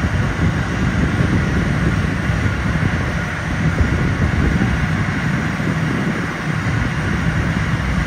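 Aircraft engines running on the airfield ahead of a takeoff: a steady low rumble with a faint steady whine above it.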